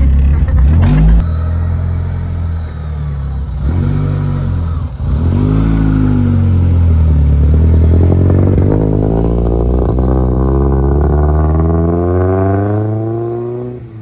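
Rotrex-supercharged Mazda Miata four-cylinder engine under power. The revs rise and fall a few seconds in, then climb steadily through a long pull for about seven seconds before dropping away suddenly.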